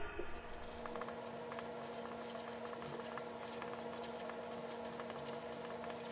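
Marker pen writing on paper: a run of small scratching strokes over a faint steady hum.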